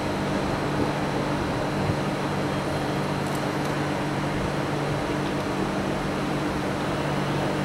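Steady machine hum: a few fixed low tones over an even hiss, with no change in level or pitch.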